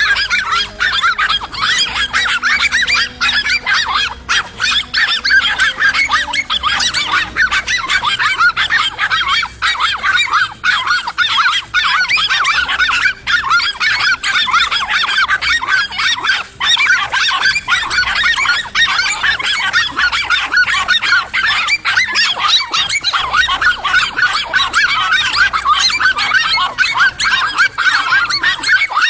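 Several dogs barking and yelping frantically at once, their short, high calls overlapping into a continuous din.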